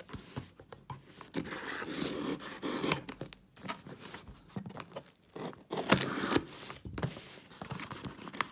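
Hands opening a taped cardboard parcel: packing tape scraping and tearing on the cardboard in rough stretches, with sharp knocks and clicks as the box is handled.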